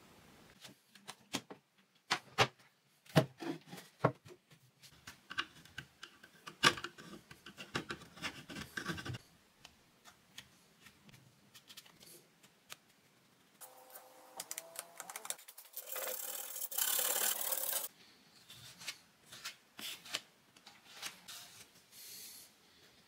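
Plastic spatula scraping white filler into a crack in a wooden chair frame. Irregular clicks and taps come in the first half, then a few seconds of steadier, louder scraping past the middle.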